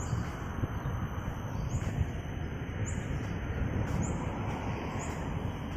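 Steady rumble of road traffic from the multi-lane road below, cars passing continuously. A faint high chirp repeats about once a second over it.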